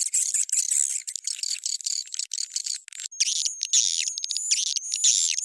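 Swiftlet lure call (suara panggil walet), a recording of swiftlet chirping and twittering that has been raised in pitch and tempo, used to draw swiftlets into a bird house. Dense, high chattering with nothing low in it; from about three seconds in, a short steady high whistle repeats between quick clicky bursts.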